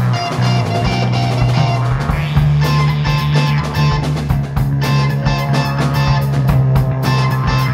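Instrumental rock band playing: electric guitar over a steady bass line, with drum kit hits keeping the beat.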